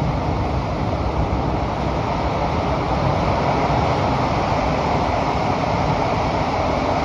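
Kawasaki-CRRC Sifang CT251 metro train running through a tunnel, heard inside the passenger car as a steady rumble and wheel-on-rail noise. It grows a little louder about three seconds in.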